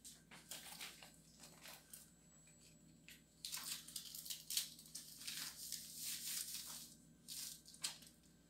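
Sheets of white sulfite paper rustling and crinkling against a wall as a taped paper cloud is handled and pressed flat. The rustling comes in bursts and is densest in the middle.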